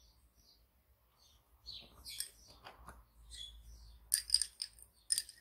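Lace bobbins clicking against one another as pairs are crossed and twisted in bobbin lace, with scattered light clicks and a quick cluster of sharper clacks about four seconds in and again near the end.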